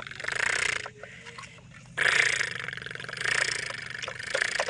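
Sheep bleating, several loud rough calls one after another.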